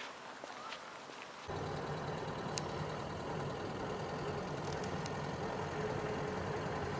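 Faint street ambience, then about one and a half seconds in an abrupt switch to the steady engine and road hum of a car driving, heard from inside the cabin.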